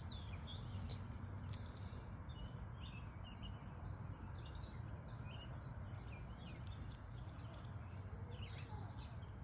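Small birds chirping in quick, repeated short calls over a steady low background rumble of outdoor noise.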